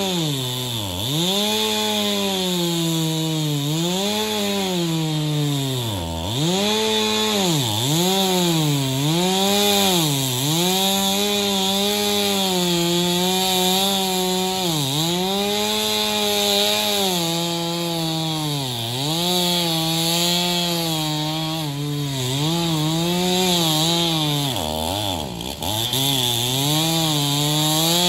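Chainsaw engine running hard at high revs. Its pitch dips sharply and climbs back up again and again, every second or two, as it is throttled and loaded in the cut.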